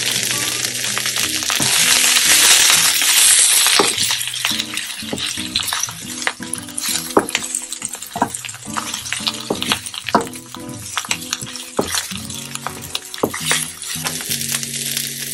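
Spinach leaves sizzling as they wilt in a hot nonstick frying pan. The sizzle is strongest in the first few seconds and then eases off, while a spatula stirring the leaves scrapes and taps the pan many times.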